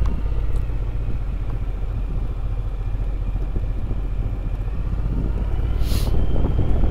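Motorcycle engine and road noise while riding, a steady low rumble, with a brief hiss about six seconds in.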